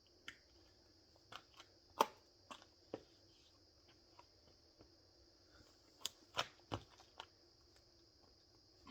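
Scattered short taps and soft thumps of hands and feet on the floor during a burpee, coming in two clusters a few seconds apart, the sharpest about two seconds in. A steady faint high hiss runs underneath.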